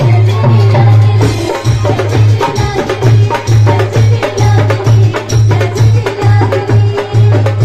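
Loud live folk music from an electronic keyboard played through PA speakers, over a deep bass beat pulsing about twice a second.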